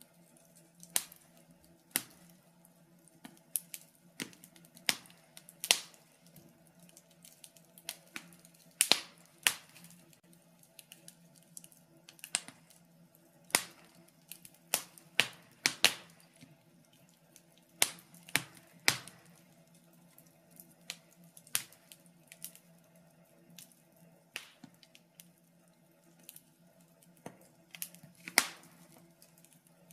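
Wood fire in a fireplace crackling: irregular sharp pops and snaps, some in quick clusters, over a faint steady low hum.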